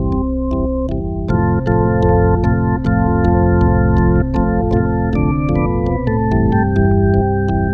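Organ music: a slow instrumental piece of held chords over a light ticking beat, about three ticks a second. The chord fills out about a second in, and the melody steps down through several notes near the end.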